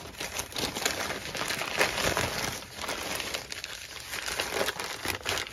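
Newspaper crumpling and crackling as hands pull apart and unfold the sheets wrapped around an object, in quick irregular rustles.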